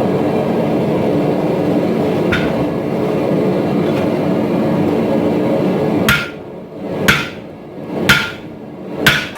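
A loud, steady mechanical noise for about six seconds, then four hammer blows on steel about a second apart, each with a short metallic ring.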